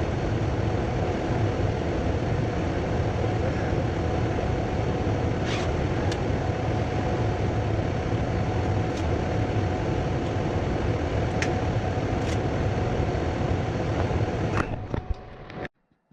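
Gas furnace running steadily with its burner and blower on, a low drone under a steady hum tone, after the furnace has staged up to high fire. It fades and cuts off sharply just before the end.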